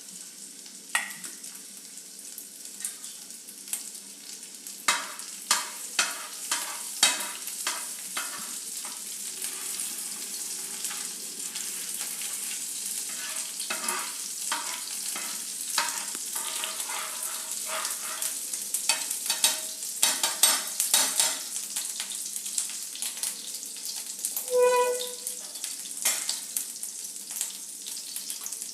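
Grated ginger and green turmeric sizzling in hot oil in a pan, stirred with a spoon that clicks and scrapes against the pan many times. A brief tone sounds near the end.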